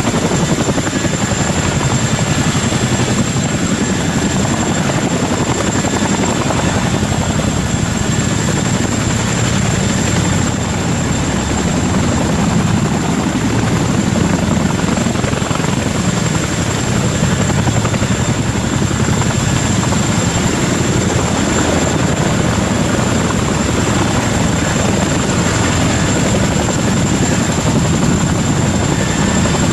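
Boeing CH-47 Chinook tandem-rotor helicopter running steadily, with a dense rotor beat and a steady high whine over it.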